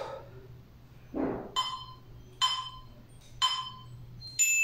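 Workout interval timer counting down: three short ringing chime pings about a second apart, then a higher, louder ding near the end that marks the start of the next timed set.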